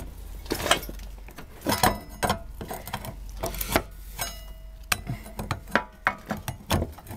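Metal clinks and knocks as a disc-brake caliper is handled and positioned against a steel brake disc and kart frame, a few of the knocks ringing briefly.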